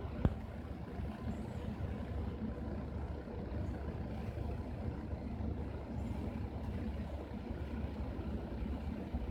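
Steady low rumbling background noise, with one sharp click about a quarter second in.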